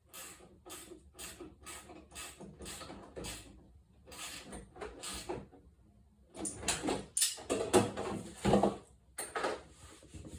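A run of short, evenly spaced metal clicks, about three a second, then after a pause a burst of louder knocks and scrapes: hand tools working on the diesel heater's fuel-line fittings.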